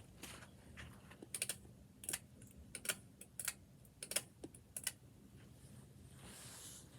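Harbor Breeze Tebron Garden ceiling fan running, with a light click repeating about every two-thirds of a second over a faint low hum.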